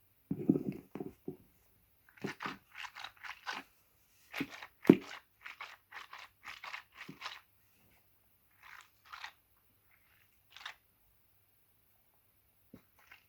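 Orbeez-filled squishy stress ball squeezed close to a microphone: a run of short, irregular squishing sounds, dense for several seconds and then sparser and fainter. A brief low handling rumble of the microphone comes at the very start.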